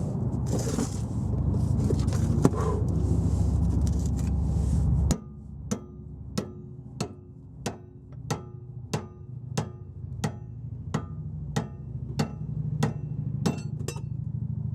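Hammer striking a pickle fork over and over to split the steering damper's tapered end from its mount. The strikes are sharp and metallic, evenly spaced about one every two-thirds of a second, with a brief ring. They start about five seconds in, after steady background noise.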